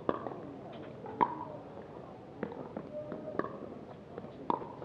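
Pickleball paddles striking the hard plastic ball in a rally: about five sharp pops roughly a second apart, the loudest about a second in.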